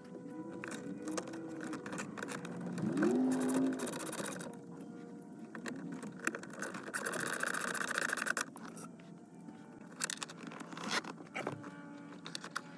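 Clicks, knocks and scrapes of plastic interior trim being handled and snapped back into place in a car's center console.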